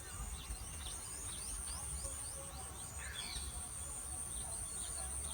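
Forest ambience: small birds giving many short, quickly falling chirps over a steady, high-pitched insect drone.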